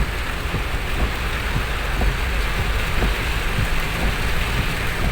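Heavy rain pouring steadily, with a steady low rumble underneath.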